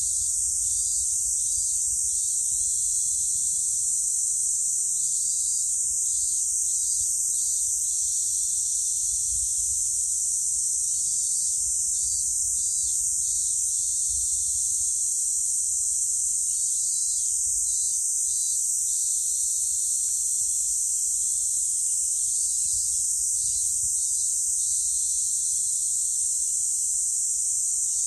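Cicadas droning in chorus: one steady, high-pitched buzz.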